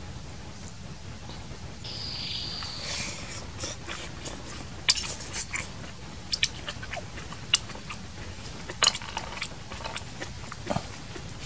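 A person eating with chopsticks from a bowl: sharp lip smacks, slurps and chewing, starting about halfway through and peaking in a few loud smacks.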